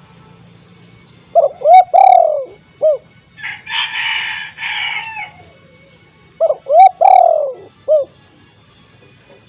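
Spotted dove (tekukur) cooing loudly: two phrases of the typical four-note song, two short notes, one long drawn note and a final short note, about five seconds apart. A harsher, noisier sound of about two seconds comes between the phrases.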